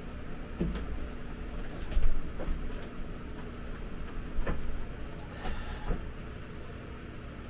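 Freemotion elliptical trainer being stepped onto and pedalled: a low mechanical rumble from the machine with irregular knocks and clunks, the loudest about two seconds in.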